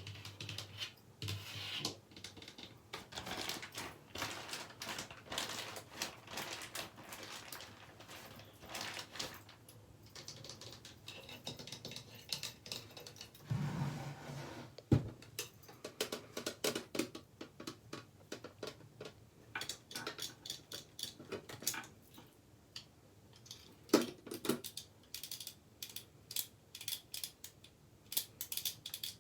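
Fast ASMR tapping and scratching: dense runs of quick taps with short pauses and stretches of scratching. Two sharper knocks stand out, about halfway through and again about three-quarters of the way in.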